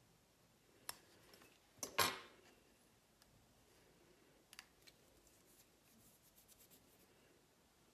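Vinyl stencil being weeded off a tumbler with small hand tools: faint clicks, then one short, louder scrape-like snip about two seconds in, followed by a scatter of faint ticks.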